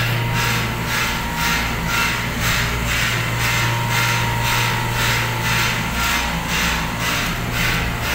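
Hand scrub brush rasping back and forth on a soapy tiled floor, about two strokes a second, over a steady low hum.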